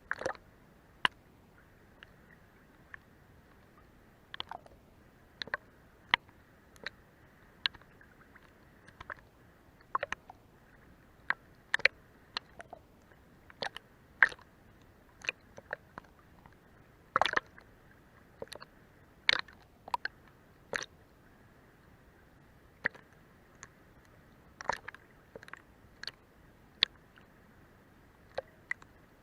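Sea water lapping under a boat's hull: irregular small slaps and clicks, a few clustered together, over a faint steady hiss.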